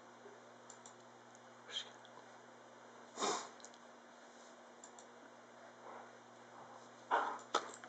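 Dog holding a plastic wiffle ball in its mouth, blowing out sharply through its nose once about three seconds in, with a fainter puff earlier and a few short sounds near the end.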